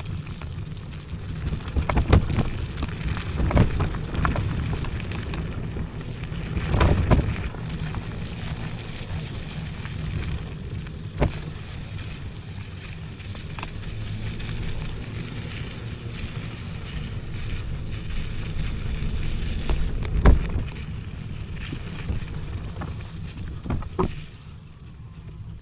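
IO HAWK Legacy electric scooter riding off-road over a wet, muddy forest track: a steady low rumble from the tyres and wind, with several sharp knocks from the scooter jolting over bumps. The rumble dies down shortly before the end.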